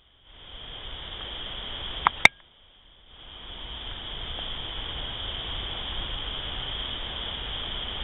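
Steady, high-pitched chorus of night-calling animals. It is cut off briefly at the start and again for under a second just after two sharp clicks about two seconds in, then fades back up and holds steady.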